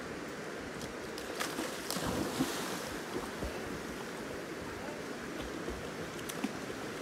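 Steady rush of river water, with a splash about two seconds in as a dog jumps in and swims out.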